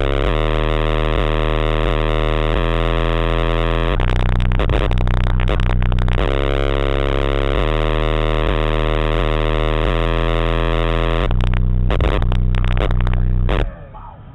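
Sony Xplod car subwoofers playing very loud bass that steps between deep notes in a repeating pattern, heavily distorted in the recording. It cuts off suddenly near the end.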